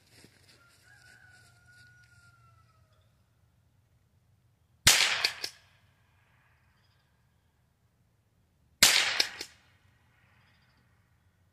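Two shots from a Henry H003T pump-action .22 Long Rifle, about four seconds apart, each followed by a short echo.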